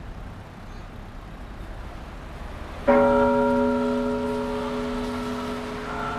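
Faint street noise, then a bell-like chord struck suddenly about three seconds in that rings on and slowly fades; a further note comes in near the end.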